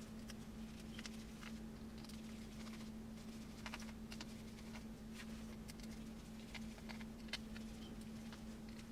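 Faint, scattered light clicks and taps of a small screwdriver and tiny screws on a Samsung Galaxy S8's internal frame during disassembly, over a steady low hum.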